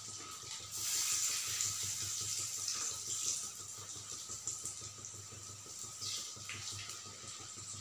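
Urad dal vadas deep-frying in hot oil: a steady sizzling hiss that swells about a second in and eases off after a few seconds.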